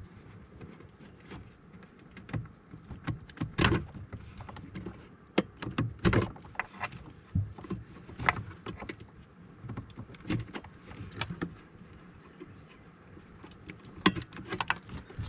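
Wiring-harness plugs being worked loose from a 2008 Cadillac CTS's body control module: irregular clicks, knocks and rattles of the connectors, some louder than others.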